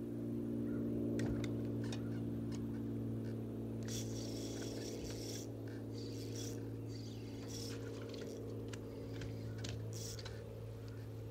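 A steady low hum with several even overtones, under scattered light clicks and a few short hissing bursts, the longest about four seconds in.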